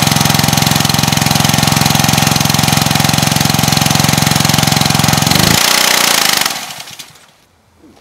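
A Honda GCV190 single-cylinder engine on a pressure washer runs loud and steady, then sputters and winds down to a stop about six seconds in. It is choking out: it runs only on the gas-oil mix primed into the cylinder and is not yet drawing fuel through the carburetor.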